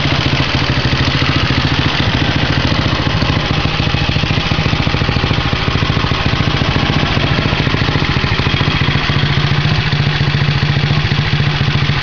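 2008 Hi-Bird QH200ST ATV's four-stroke engine idling steadily.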